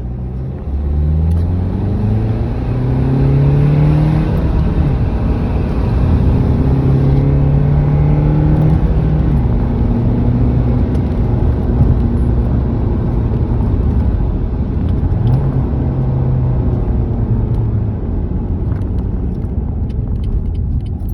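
Renault Megane engine accelerating through the gears, heard from inside the cabin over road rumble. Its pitch rises in each gear and drops at each shift, twice in the first half, then runs steadier.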